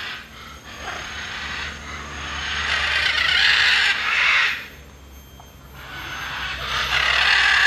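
Macaws squawking in two long, harsh bouts of about three seconds each, the second starting near the end.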